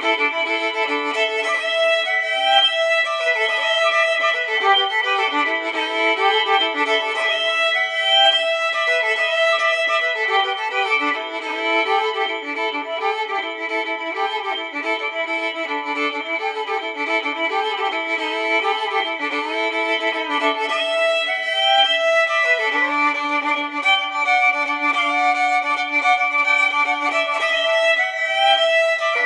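Violin music: bowed notes held for a second or more, with several pitches sounding together and changing every few seconds.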